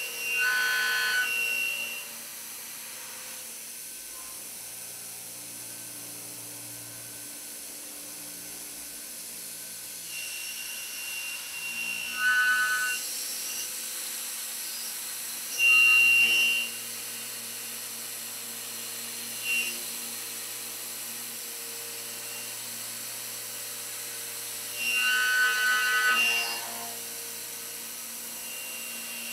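Voortman V310 CNC milling spindle driving an end mill through steel plate: a steady machine hum, with a loud high-pitched cutting whine that swells up four times and dies back.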